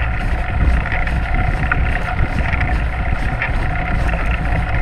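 Fat-tyre bike rolling fast over a dirt trail, heard from a handlebar-mounted microphone: a steady rumble of tyre noise and wind on the microphone, with small clicks and rattles from the bike over bumps.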